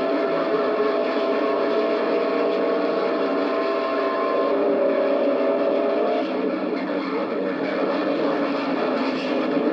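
CB radio receiver hissing with band noise and several steady whistling heterodyne tones. One tone stops about four and a half seconds in, another about six seconds in.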